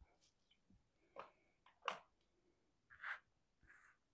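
Faint handling sounds of small diamond-painting butterfly pendants being slid and set down on a table: a few short, soft taps and scrapes, the loudest about two seconds in.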